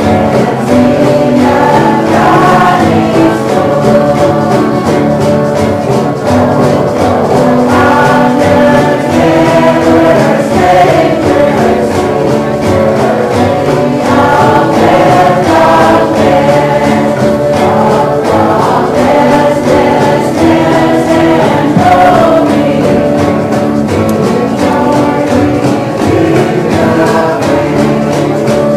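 A choir singing Christian music, continuous throughout.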